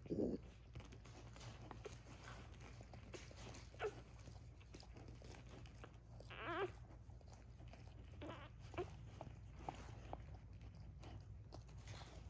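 Wet licking and suckling mouth noises as a mother dog licks her newborn puppies while they nurse, with a thump at the start and a few short high squeaks, the clearest just past the middle.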